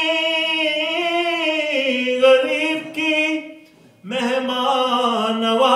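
A man singing an unaccompanied Urdu soz-salam lament into a microphone, drawing out long, slowly wavering held notes. The voice breaks off briefly about four seconds in, then starts a new phrase.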